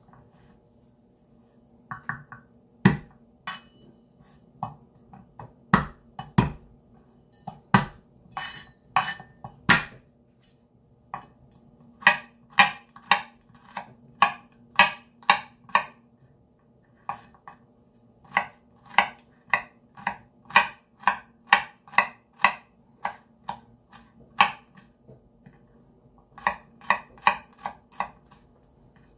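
Kitchen knife mincing garlic cloves on a bamboo cutting board. The blade knocks sharply on the wood in runs of about two strokes a second, with short pauses between runs.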